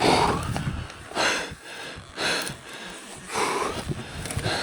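A man breathing hard and heavily, about four loud breaths roughly a second apart, from the strain of pushing a loaded touring bike up a steep trail.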